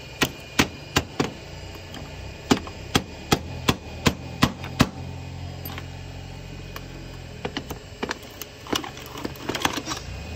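Sharp metal knocks as a long steel tool wedged in a PCC streetcar brush holder is struck to open up its frame. There are four knocks, a short pause, then a run of seven at about two and a half a second, followed by lighter clatter and scraping of tools on metal near the end.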